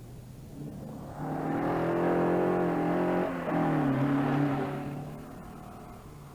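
Rally car engine under hard acceleration as the car approaches and passes, with a brief break in the note about three seconds in like a gear change. The pitch then falls and the sound fades away.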